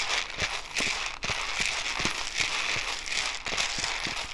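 Freshly roasted coffee beans stirred with a spoon in a small bowl to cool them, giving many small irregular clicks and rattles over a steady hiss.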